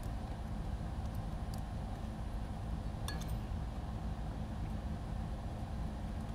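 Steady low background hum, with a few faint clicks and light clinks of small plastic drone parts (frame, prop guards, motors) being handled, about one second in and again around three seconds in.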